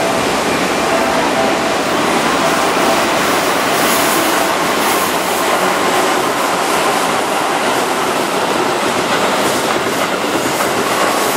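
Keihan 6000-series electric train, set 6008, running past close by on curved track: a steady, loud rumble of wheels on rail and running gear.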